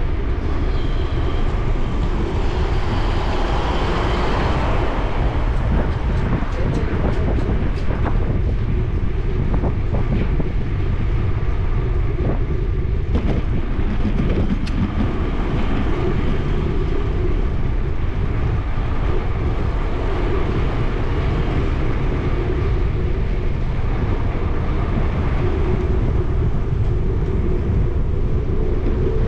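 Steady rumble and rattle of a bicycle rolling over street pavement, heard up close, with a run of sharp clicks about six to eight seconds in.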